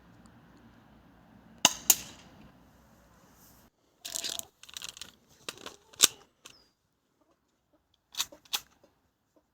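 CZ-75D Compact spring airsoft pistol by ASG being shot: sharp pops that come in pairs about a second and a half in and again near the end, with a single loud pop about six seconds in. Between the shots there is a stretch of clicking and rattling about four seconds in, like the slide being handled or racked.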